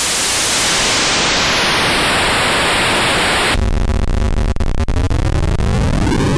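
Feedback Static Eurorack noise module's TR noise output, heard as a steady hiss that about halfway through turns abruptly into a gritty, buzzy, Atari-like tone whose pitch keeps shifting as the sweep pot is turned.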